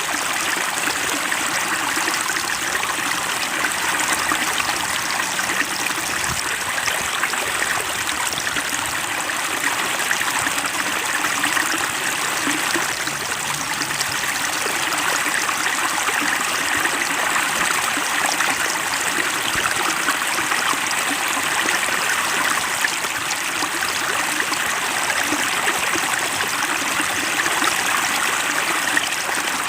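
Flowing water running steadily, a continuous trickling and rushing stream with no break.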